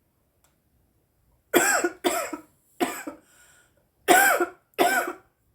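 A woman coughing from cannabis smoke: five separate coughs, starting about a second and a half in, the last two close together.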